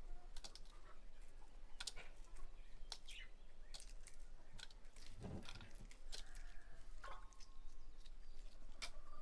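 Shells of hard-boiled chicken eggs crackling in quick irregular clicks as they are peeled by hand. A soft low thump comes a little after five seconds in, and faint bird chirps follow shortly after.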